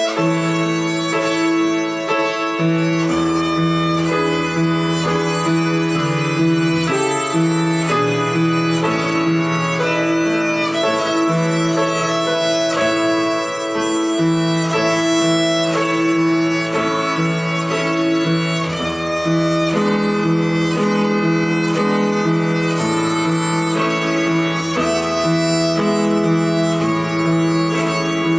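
Violin playing a simple melody in steady held notes over an accompaniment with a moving bass line.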